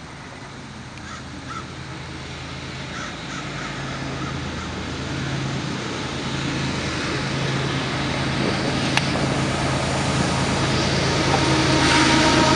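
Canadian Pacific freight train's diesel locomotives approaching: a steady low engine drone that grows louder as the lead unit nears. A bird calls a few times in the first few seconds, and a higher steady tone joins near the end.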